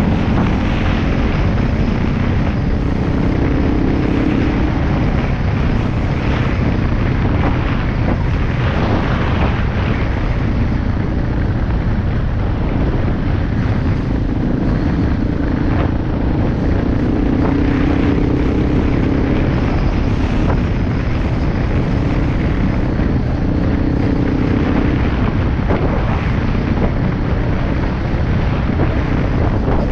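Vehicle driving off-road: a steady engine and tyre rumble over a dirt road, with wind noise, the engine hum rising and falling a little.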